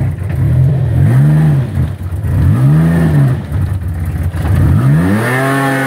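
An off-road 4x4's engine revving in surges under load in mud: it rises and falls twice, then climbs again and holds high near the end.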